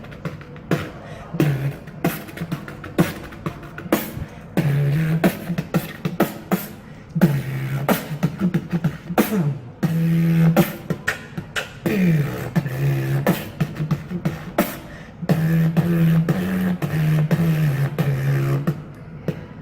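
Beatboxing: sharp mouth-made percussion hits over sustained hummed bass tones that slide up and down in pitch, in a steady rhythm.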